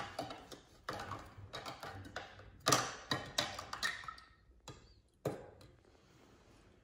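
Small plastic toy figures tapping and clinking against a glass tumbler of water as they are dipped in and lifted out, a series of sharp knocks, some with a brief glassy ring; the loudest clink comes about three seconds in.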